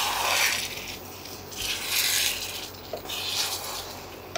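A wooden spatula scrapes and stirs noodles around a frying pan in swishing strokes, about one a second.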